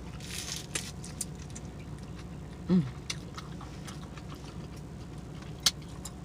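Close-miked chewing and mouth smacking on a filled crepe, with scattered short clicks, the sharpest one near the end. A short satisfied "mmm" hum comes a little under halfway through.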